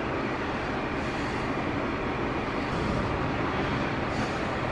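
VW Golf R running: a steady, even rush of engine and road noise with no rise or fall in pitch.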